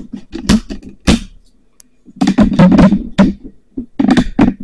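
Camera handling noise: a run of loud knocks, bumps and rubbing close to the microphone as the camera is picked up and turned.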